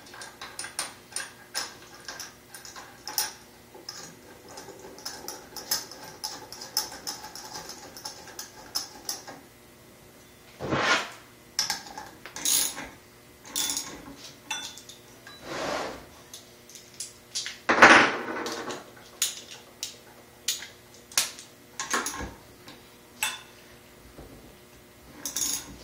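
Small metal clicks and clinks as the retaining bolt and washer of a Torq-a-verter driver pulley are fitted onto the engine's crankshaft and tightened with a wrench, with a few louder knocks about halfway through and near the end.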